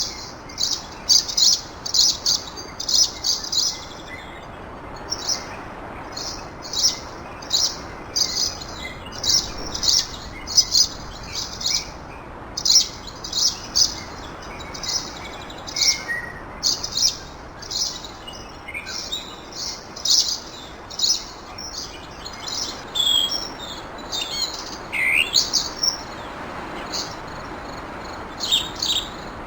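Small birds chirping continuously, quick high repeated notes coming in clusters, with a few sweeping calls near the end, over a steady soft background hiss.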